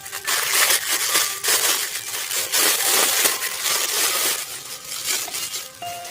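Packaging being handled and crushed, an irregular, continuous crunching and crinkling.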